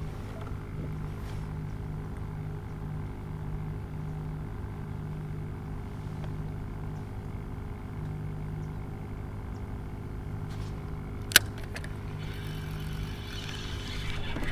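Steady low mechanical hum, like an engine or motor running, with a faint pulsing throb in it. A single sharp click comes about eleven seconds in.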